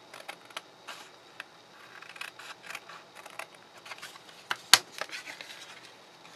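Scissors snipping through cardstock in a series of short, quiet cuts, with the card rustling as it is handled. One sharp, loud knock comes about three-quarters of the way in.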